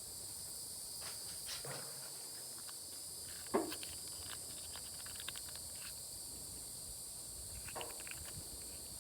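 Steady high-pitched drone of insects, with scattered small clicks and scrapes and one sharper knock a little over three seconds in. The clicks and knock fit a zip tie being worked into a clogged waterer cup to clear the gunk.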